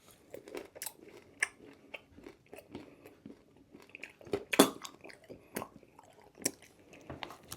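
A raw fish eye being chewed up close: irregular wet crunches and clicks, the loudest about four and a half seconds in.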